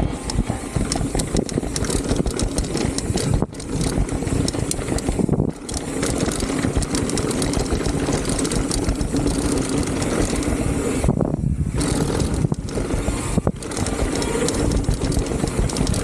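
Mountain bike riding down a rough trail: a continuous rush of noise with constant rattling and knocks from the bike over the ground, dropping away briefly a few times.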